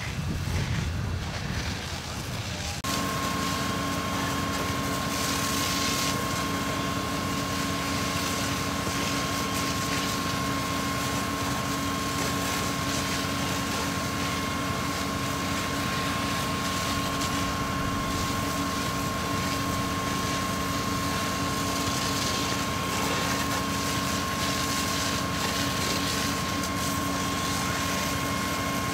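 Fire engine's engine and water pump running steadily, a constant hum with a high whine, over the hiss of hose water spray. It sets in suddenly about three seconds in, after a low wind-like rumble.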